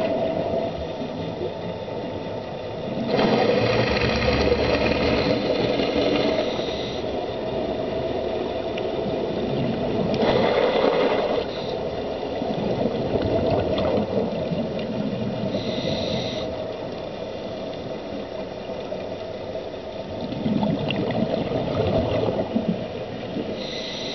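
Underwater sound picked up through a camera housing: a scuba diver's regulator, with exhaled bubbles gushing up in surges every several seconds over a steady low hum.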